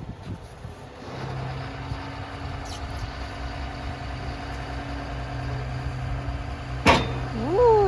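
Heavy diesel engine idling with a steady low hum. Near the end there is one sharp metallic knock, followed by a short pitched sound that rises then falls.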